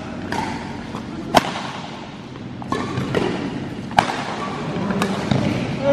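Badminton rackets striking a shuttlecock in a rally: a series of sharp cracks a second or so apart, the loudest about a second and a half in and again about four seconds in.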